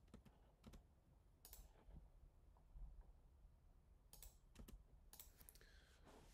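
Near silence broken by about eight faint, sharp clicks at irregular spacing, from a computer mouse and keyboard being used.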